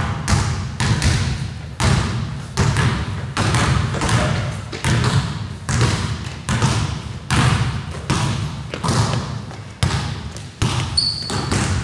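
Basketball being dribbled on a hardwood gym floor: a steady run of bounces, about one every three-quarters of a second, each echoing in the hall. A brief high squeak comes near the end.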